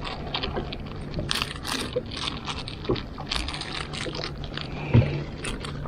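Fishing tackle being handled: a run of small clicks, rattles and scrapes with a louder knock about five seconds in, over a steady low hum.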